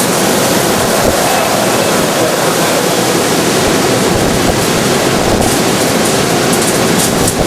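Hurricane Katrina's storm winds blowing with a loud, steady rush.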